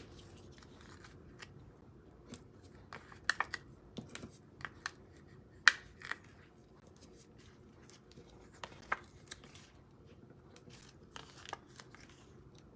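Scattered small clicks, taps and paper rustles as adhesive foam squares (Stampin' Dimensionals) are peeled from their backing sheet and pressed onto the back of a cardstock panel.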